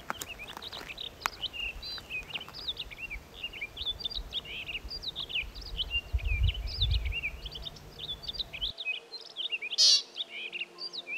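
Songbirds singing, a dense run of quick chirps and trilled notes throughout. A low rumble comes in around six seconds, and a short, sharp hissy burst near the end is the loudest sound.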